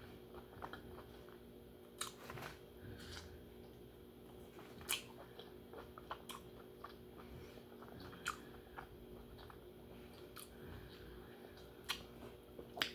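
Close-miked mouth sounds of someone eating lobster meat: quiet chewing with short sharp mouth clicks every second or two.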